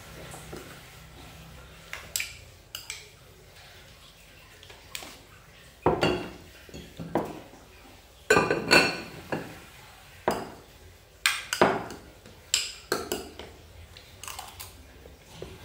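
Metal spoon clinking and scraping against ceramic bowls while salad is scooped up and eaten: about a dozen sharp, irregular clinks, most of them in the middle of the stretch.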